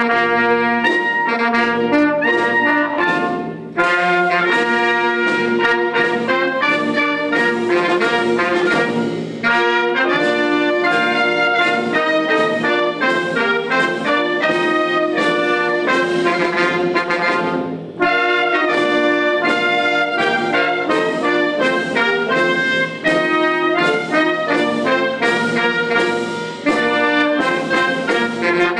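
Military wind band of brass, clarinets and saxophones, with tubas in the bass, playing a piece as a full ensemble, with short breaks between phrases.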